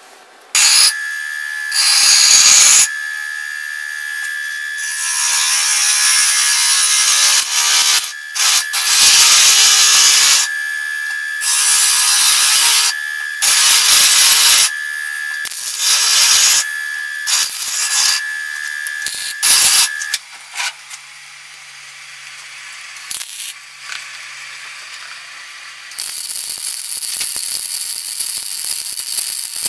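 MIG welder welding a steel engine-mount bracket: crackling runs of weld a second or a few long with short breaks, over a steady high whine that stops about two-thirds of the way through. A fainter, steadier sizzle of welding near the end.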